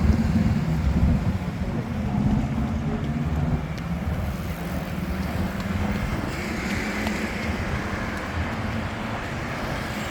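Street traffic: a motor vehicle's engine rumbling close by, loudest for the first few seconds, then easing off into steady traffic noise.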